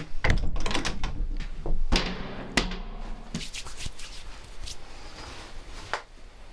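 Vault toilet door being opened and shut: a string of sharp knocks and clicks, loudest in the first three seconds, with a last click about six seconds in.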